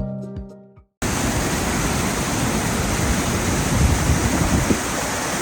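Background music fading out in the first second, then a steady rush of water at an old canal lock.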